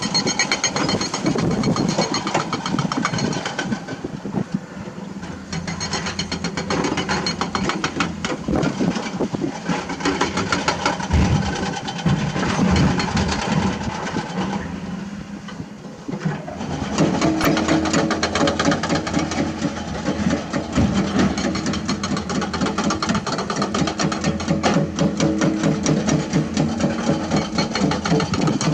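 Diesel engine of heavy earthmoving machinery running with a fast, steady pulsing beat. It eases off twice, then comes back up under load about two-thirds of the way through.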